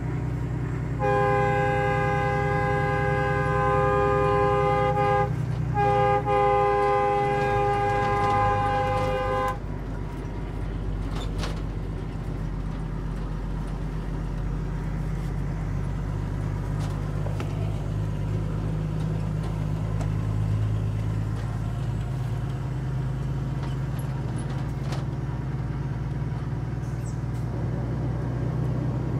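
A horn sounds as a chord of several steady tones in two long blasts, each about four seconds, with a short gap between. Under it and afterwards, the truck's Cummins ISX diesel engine drones steadily.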